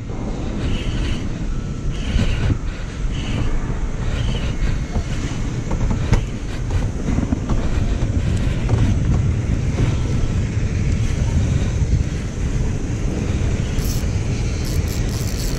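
Wind buffeting the microphone in a steady low rumble, with an occasional click.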